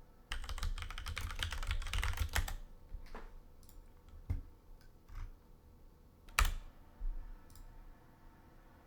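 Typing on a computer keyboard: a quick run of keystrokes for the first two seconds or so, then a few separate single clicks a second or so apart, the loudest about six and a half seconds in.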